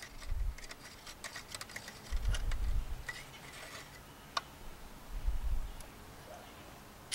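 Light, irregular metal clicks and ticks of hand tools working a spark plug out of the cylinder head with a spark plug socket and extension, with a few dull low thumps and one sharper click near the end.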